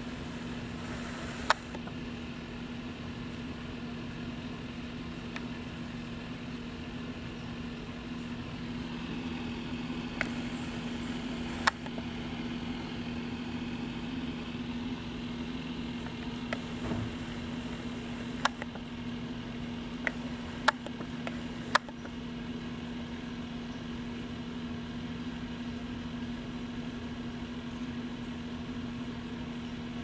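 A steady low mechanical hum, with a few sharp clicks scattered through it.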